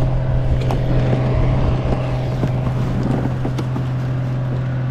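A steady low hum under rushing wind noise on the microphone.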